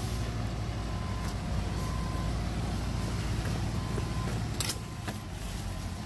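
Fire engine's diesel engine running with a steady low rumble, a faint beeping heard now and then, and a brief hiss of air about two-thirds of the way through.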